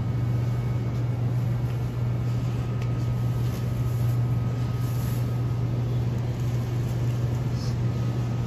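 Steady low machine hum with a faint thin high tone above it, the background drone of a supermarket's refrigerated produce cases and air handling.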